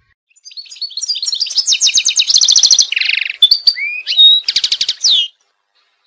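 White canary singing a phrase of fast, high trills, with a lower rolling stretch in the middle and a few short gliding whistles, ending abruptly a little after five seconds.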